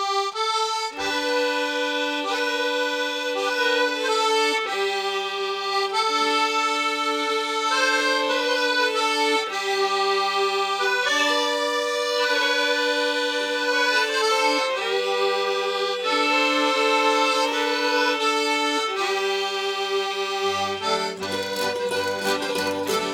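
Accordion playing a traditional-style folk dance tune solo: a lively melody over held chord notes. Near the end, a bass line and a rhythmic accompaniment come in as the band joins.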